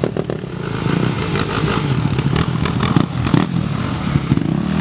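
Two dirt bike engines running as the bikes pull off, with a few sharp clacks about three seconds in.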